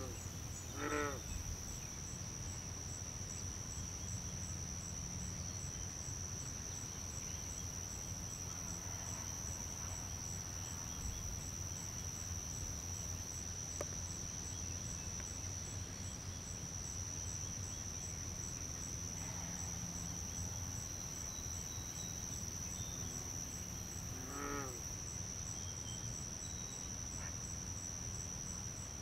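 Young great blue herons calling from the nest: short, harsh, pulsed calls twice near the start and once more about 25 seconds in. Under them runs a steady, high insect drone.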